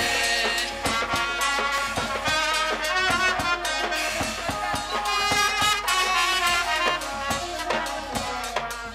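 Live jatra folk-theatre band music: repeated drum strokes under sustained melodic instrument lines.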